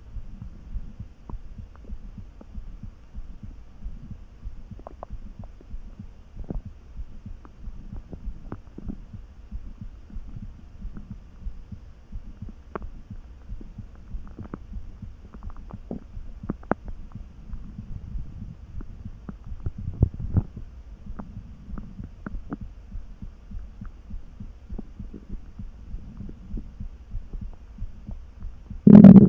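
Human stomach rumbling and gurgling at a low, steady churn, with scattered small pops, from a hungry, mostly empty stomach. A louder gurgle comes about twenty seconds in, and a sudden very loud burst just before the end.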